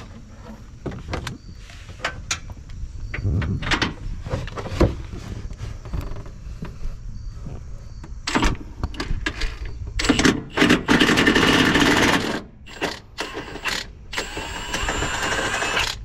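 Metal clinks and knocks of a socket and extension being worked onto the front body-mount nut, then a cordless impact wrench hammering loudly for about two seconds. Near the end comes a second, quieter run with a rising whine as the nut comes off.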